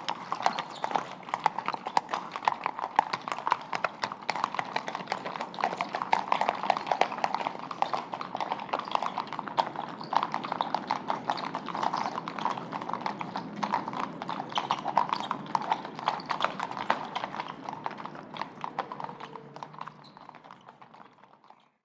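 Horse-drawn cart: a horse's hooves clip-clopping steadily on a hard surface, with the cart rolling along behind. The sound fades away over the last few seconds.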